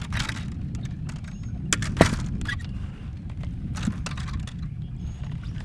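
Fishing gear being handled on a boat deck: a few sharp clicks and knocks, the loudest about two seconds in, over a steady low rumble.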